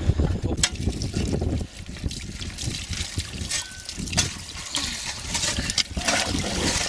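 Water trickling from a plastic bottle as it is poured into an elephant calf's mouth, over a steady low rumble, with a few sharp clicks.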